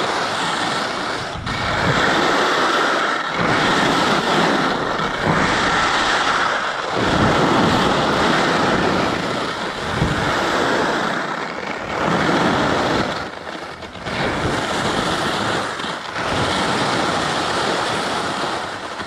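Skis carving turns on a groomed piste, the edges scraping over the snow in swells that rise and fall every couple of seconds, with wind rushing over the microphone.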